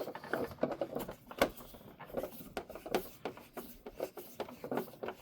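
Small screws being turned back into the plastic base of a McFarlane Toys Batmobile model, making irregular light clicks and scraping.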